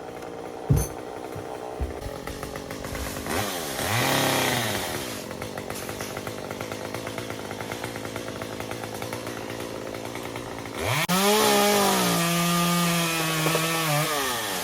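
Chainsaw idling with a steady putter. It is revved briefly about four seconds in, then revved high again near the end and held for about three seconds before dropping back. A single sharp knock comes just under a second in.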